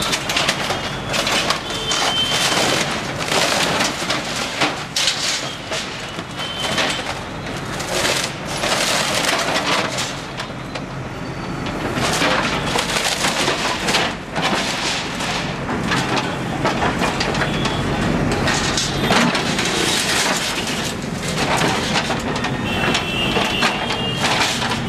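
JCB backhoe loader's bucket tearing down a brick wall and shop front: masonry, wood and sheet metal crashing and clattering with many cracks and scrapes, over the steady running of the machine's engine.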